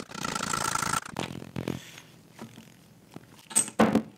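Metal scraping and rasping for about a second, from a countershaft bearing being worked into a gearbox case with a hand tool. It stops abruptly. Near the end come a few sharp metallic clicks and knocks.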